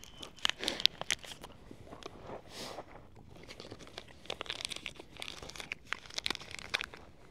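Irregular crunching and crinkling rustles in several short bursts.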